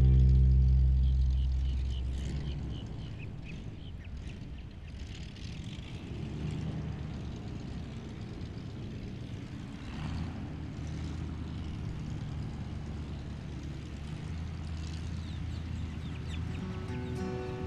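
Outdoor ambience of a low vehicle engine rumble with scattered short bird calls. A deep music note fades out over the first couple of seconds, and music comes back in near the end.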